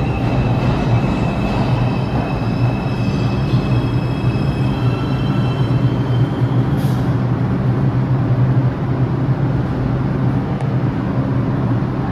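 New York City subway train moving along the track through the station, with a steady low hum and rumble of wheels on rail. High whining tones sound over it for the first few seconds and then fade.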